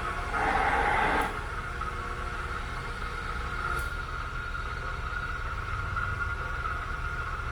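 Rambaudi MS2 vertical milling machine running, its 2.5 hp three-phase motor and pulley-driven R8 spindle giving a steady mechanical hum. A louder, rougher surge comes about half a second in and lasts about a second.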